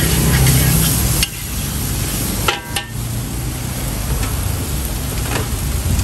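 Fried noodles sizzling in a wok over a charcoal fire while a metal spatula stirs and scrapes through them, with a couple of sharp spatula clanks against the wok about two and a half seconds in. A low steady hum runs underneath.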